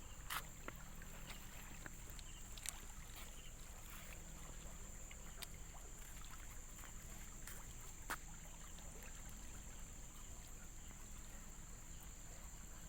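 Faint night ambience: a steady high insect trill over low running-water noise, with a few scattered sharp clicks.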